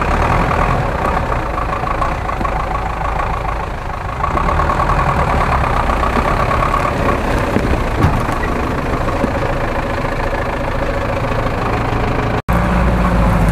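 GAZ-66 off-road truck's engine running at low speed as it crawls along a rough forest track, steady and loud, with a pulsing whine over it in the first half. The sound drops out for an instant near the end.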